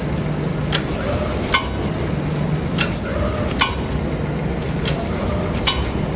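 Automatic maida (flour) pouch-packing machine running through its cycle about every two seconds: a short low hum, then two sharp mechanical clacks.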